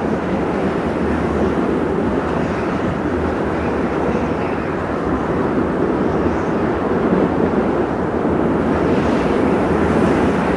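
Steady blizzard wind, a dense rushing noise that slowly grows a little louder.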